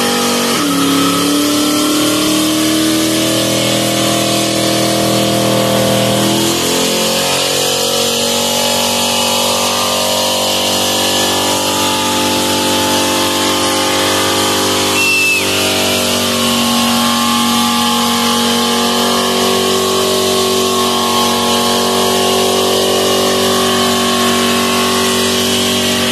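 Chevrolet Vega wagon doing a burnout: the engine is held at high revs with the rear tyres spinning on the spot. The revs climb at the start, hold steady, and step up again about six seconds in.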